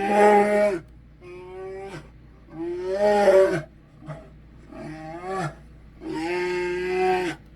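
St Bernard dog giving a string of drawn-out, moaning growl-like calls, about five of them, each roughly a second long and bending in pitch, the loudest about three seconds in and near the end.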